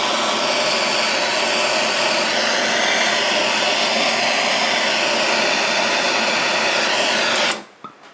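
Gas blowtorch flame hissing steadily as it is played on a freshly thrown clay bowl. It shuts off abruptly about seven and a half seconds in.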